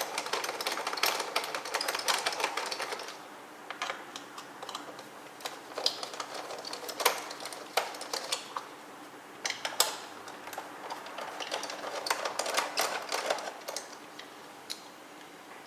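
Phillips screwdriver backing out the screws of a Roomba's plastic bottom faceplate: quick runs of small clicks and scrapes from the driver and screws in the plastic. The clicking is dense for the first few seconds, sparser in the middle, and picks up again near the end.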